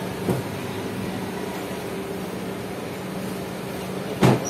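Steady machine hum with two low steady tones. A soft knock comes just after the start and a louder thump near the end.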